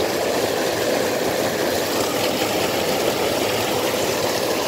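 Water pouring over a small concrete weir into a ditch, a steady rushing splash of falling and churning water.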